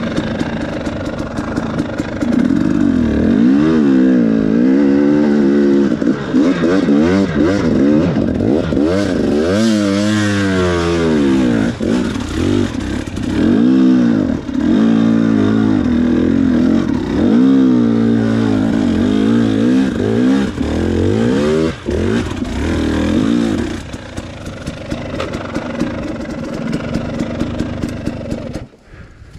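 Dirt bike engine being ridden along a rough trail, revving up and dropping back over and over as the throttle is worked. The engine eases off after about 24 seconds and drops away almost completely near the end as the bike comes to a stop.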